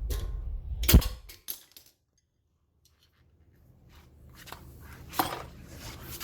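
Metal clicks and clinks of a 14 mm spanner working a brake caliper bolt tight. There is a sharp, loud click about a second in and a few lighter ones after it, then a short dead gap, then more clinks with a strong one near the end.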